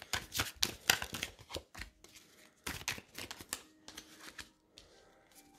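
Tarot cards being drawn from the deck and laid down on a cloth-covered table: a run of irregular flicks and taps, thinning out after about three and a half seconds.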